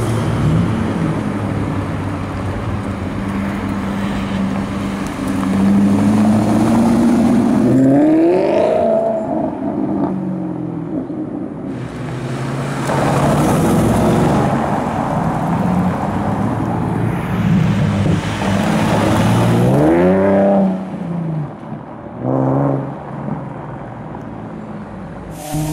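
Sports car engines revving and accelerating hard along a street. The engine pitch climbs sharply about eight seconds in and again about twenty seconds in, with a short rev blip soon after.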